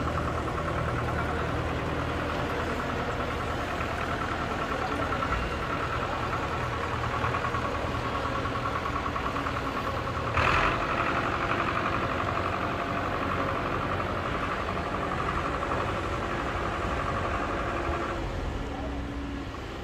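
Diesel engines of a tractor and a Kobelco crawler excavator running steadily close by, with a single sudden clank about ten seconds in.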